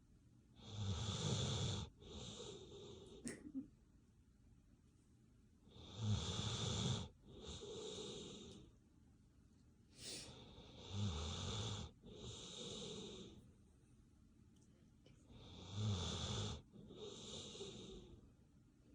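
A sleeping dog snoring in slow, regular breaths, about one every five seconds. Each is a rattling snore followed by a softer, airy second breath.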